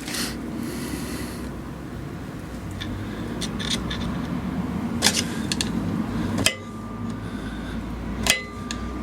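Steel pliers tapping and levering a lock-tab washer over an MGA rear hub nut: scattered light metal clicks, then two louder ringing metal strikes near the end.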